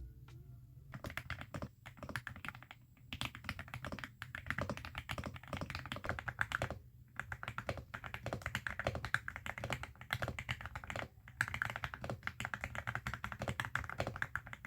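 Typing on an Aula F75 mechanical keyboard with jelly keycaps and Ice Vein switches: quick runs of keystrokes with brief pauses between them.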